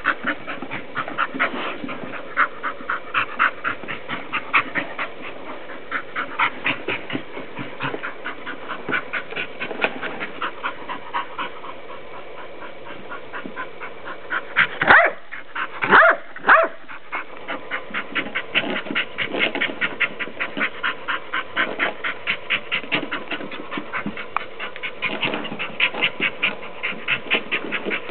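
Pit bull panting hard and fast in a steady rhythm while at play. Three short, loud barks break in about halfway through.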